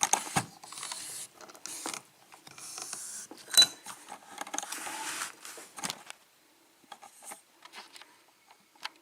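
A metal pin-tumbler lock being handled and clamped in a bench vise: scraping and rustling with clicks, a sharp metallic clink about three and a half seconds in, then only faint scattered clicks from about six seconds.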